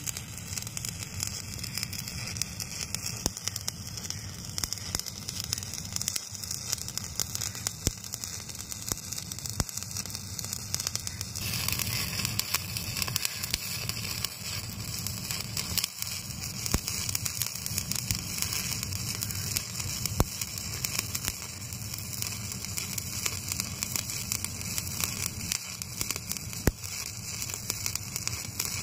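Stick (shielded metal arc) welding arc crackling and sizzling steadily as a continuous bead is run on mild-steel checker plate, with scattered sharp pops; the hiss turns brighter about a third of the way through.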